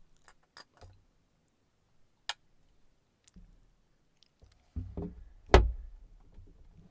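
Handling of a glass cologne bottle and its cap on a surface: a few light clicks, a sharp click about two seconds in, then low thumps and a louder knock a little past halfway.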